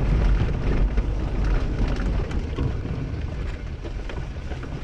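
Mercedes car driving along a dirt forest track, heard from inside the cabin: a low rumble of engine and tyres with a scatter of small ticks and rattles, easing slightly toward the end.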